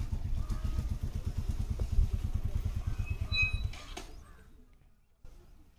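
Motorcycle engine running with a steady low, rapid beat, fading out about four seconds in.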